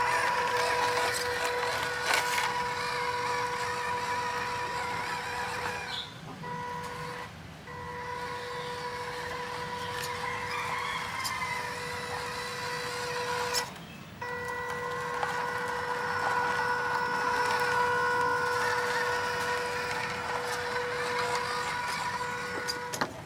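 Electric motor and gears of a 4x4 RC toy car whirring with a steady high whine. The whine drops out briefly twice, about six and fourteen seconds in.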